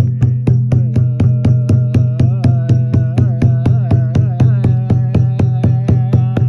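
Music: a steady low drone under a regular percussive beat of about four strokes a second, with a wavering, vibrato-laden melody line entering about a second in.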